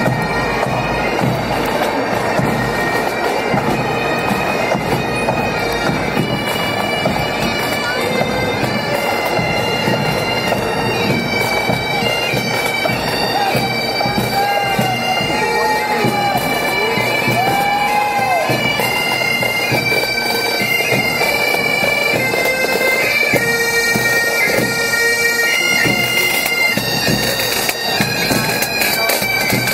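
Pipe band: Great Highland bagpipes playing a march tune over their steady drones, with the band's drums.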